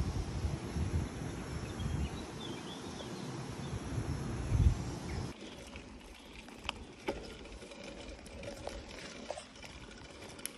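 Gusty low rumble of wind on the microphone for the first five seconds or so. It then cuts to the quieter crunch and rattle of a mountain bike rolling along a gravel track, with small scattered clicks and ticks.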